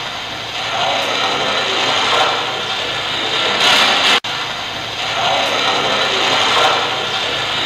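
Scratchy static and rasping noise from a handheld spirit box (ghost box) of the Geoport kind, a short recording played twice in a row, each pass ending in a louder hiss and cutting off abruptly. The investigators take a voice in it to be saying 'Why are you going home?'.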